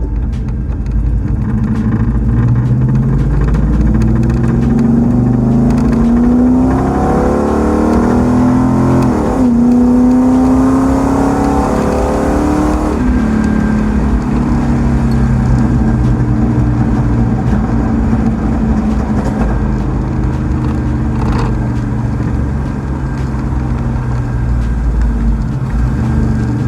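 Dodge Charger's 5.7 L Hemi V8 accelerating. Its pitch climbs, drops at an upshift about nine seconds in, climbs again, then settles into a steady cruise.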